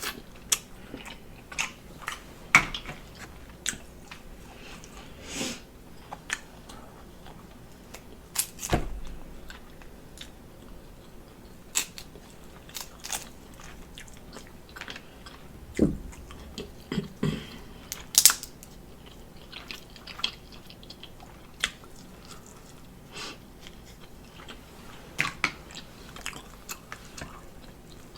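Close-up eating sounds of seafood boil: wet chewing and biting with irregular sharp clicks and cracks, a few louder ones about nine and eighteen seconds in.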